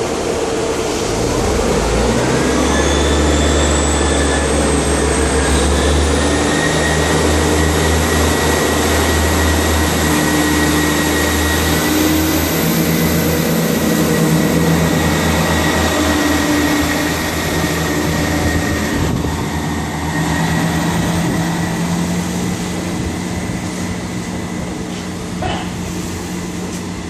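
Class 158 diesel multiple unit pulling away from a station. Its underfloor diesel engines open up about two seconds in with a loud, steady rumble, and a high whine rises in pitch as the train gathers speed. The sound eases off in the second half as the train draws away.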